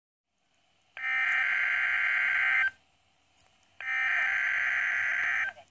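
NOAA Weather Radio's EAS/SAME digital header coming through a Midland WR-120EZ weather radio's speaker: two harsh, buzzy data bursts, each under two seconds, about a second apart, starting about a second in. They open a required weekly alert test.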